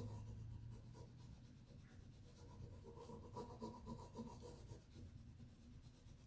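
Faint, uneven scratchy rubbing as a rub-on décor transfer is burnished onto a bare wooden drawer side by hand, pressing it through its backing sheet.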